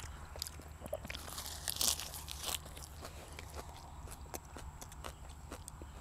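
A person chewing a mouthful of crisp fresh leafy greens, picked up close by a clip-on microphone: a louder crunching burst about a second and a half in, then steady chewing clicks.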